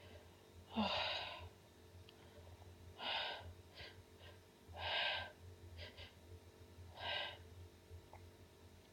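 A woman's breathy gasps, four of them about two seconds apart.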